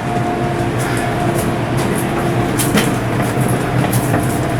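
Steady, loud machinery drone with a few sharp clicks and knocks over it.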